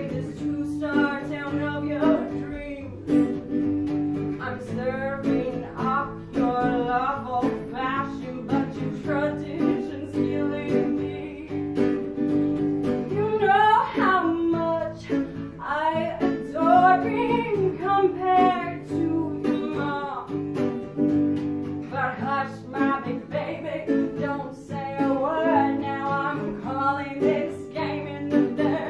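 A woman singing over an electric guitar played in a clean tone, the guitar holding steady chords and notes under her voice. Her singing bends and swoops, loudest and highest about halfway through.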